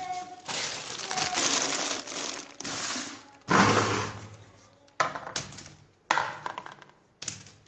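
Rustling and clattering with several sudden sharp knocks, each dying away, the loudest about three and a half seconds in.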